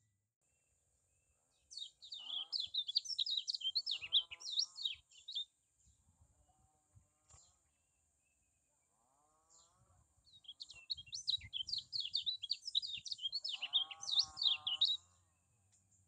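Kecial kuning (a white-eye) singing in two bursts of fast, high chirping notes, the second burst longer. Lower wavering notes come in under the song, and a faint steady high hiss sits behind it.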